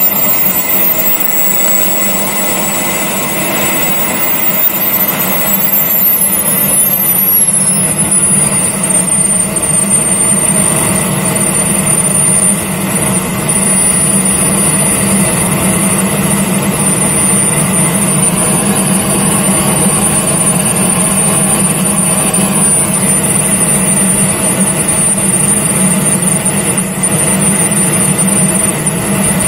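The jet engines of a radio-controlled model A-10 running on the ground, with a loud steady hum and a high whine that slides down in pitch over the first several seconds and then holds steady at idle.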